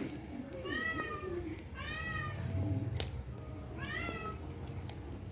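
A cat meowing three times, each meow a short call that rises and falls in pitch.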